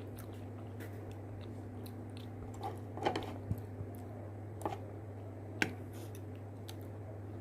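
Close-miked chewing of enoki mushrooms in spicy sauce: scattered wet clicks and smacks, bunched about three seconds in and twice more a little later, over a steady low hum.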